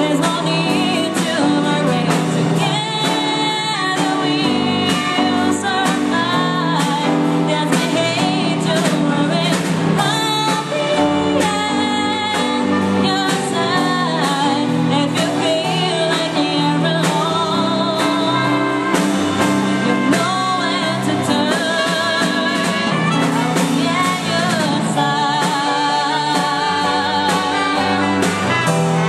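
A woman singing a slow song with a small ensemble of trumpet, violin and keyboard accompanying her.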